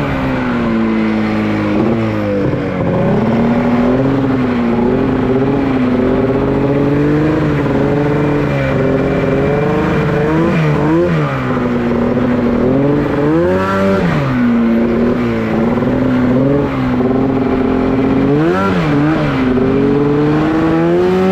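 Honda Pilot off-road buggy's engine running hard along a muddy trail, holding a steady drone and revving up and back down several times as the throttle is worked.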